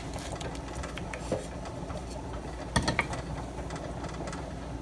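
A wooden spoon stirs shrimp, tomato and herbs in a nonstick frying pan, giving a few soft knocks over a steady low hum.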